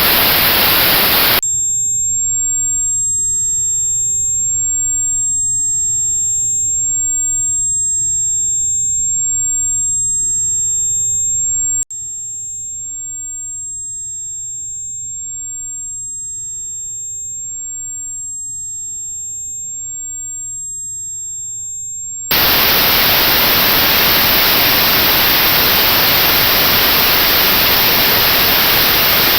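Notched white noise, a steady hiss with a band of high frequencies cut out, switches about a second and a half in to a single steady high-pitched pure test tone at the pitch of that notch. About twelve seconds in the tone steps down to a quieter level, and about twenty-two seconds in the notched white noise returns.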